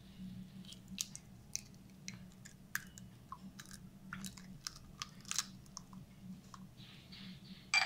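Eggshell being cracked and broken open over a ceramic bowl: scattered small crunchy clicks and crackles, with one sharper click near the end.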